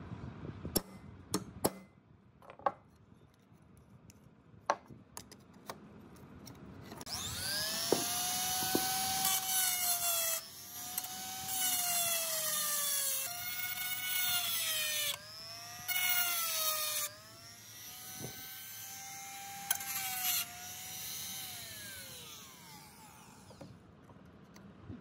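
Handheld rotary tool with a small abrasive disc grinding a rusty steel rivet head: a high whine that sags in pitch and recovers, stopping and starting several times, then winding down near the end. A few sharp clicks come before it starts.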